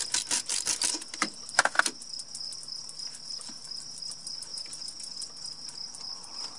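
Fast metallic clicking, then two sharp knocks just under two seconds in, from hands and a tool working loose the stud that holds a Jeep Cherokee's fuel rail on. A steady, high, pulsing insect trill runs underneath throughout.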